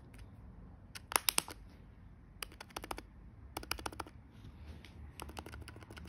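MacBook Pro butterfly-keyboard key being pressed rapidly with a fingertip, giving four quick runs of sharp clicks. This is a test of a freshly fitted keycap.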